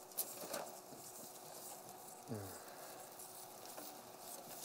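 Wire balloon whisk stirring a thick blueberry and arrowroot sauce in a stainless steel pan, with faint soft stirring and a few light clicks of the wires against the pan. The sauce has been thickened to pie-filling consistency. A brief falling tone comes about two seconds in.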